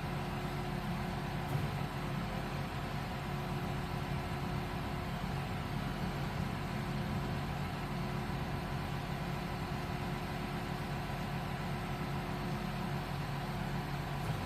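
Excavator's diesel engine running at a steady speed, with one faint click about a second and a half in.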